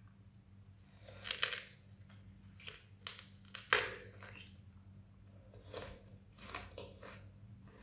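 Crunchy bites and chewing of a crisp, white-fleshed green fruit, close to the mouth: a crunch about a second in, a sharper, louder bite near the middle, then softer chewing crunches.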